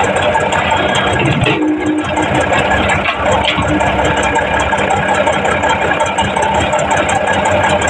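Heavy earthmoving machinery's diesel engine running loudly and steadily, with a brief shift in tone about one and a half seconds in.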